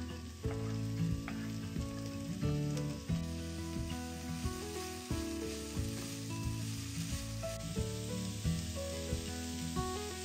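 Vegetables frying in olive oil in a pan, a steady sizzle with occasional light clicks. Soft background music plays underneath.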